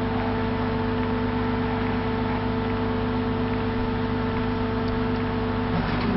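Diesel engine of a heavy construction machine running at a constant speed: a steady, even drone, with a brief change near the end.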